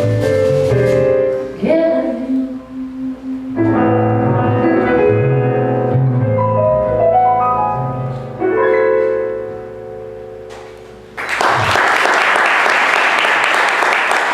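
Closing bars of a live jazz/bossa nova song on piano and bass, the last phrases thinning out to a soft held chord. About eleven seconds in, audience applause breaks out and continues.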